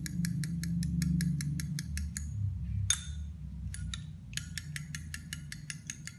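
Metal fork beating eggs in a small glass bowl, clinking against the glass rapidly and evenly at about seven or eight strokes a second. The beating breaks off for about two seconds in the middle, with one sharper clink, then resumes.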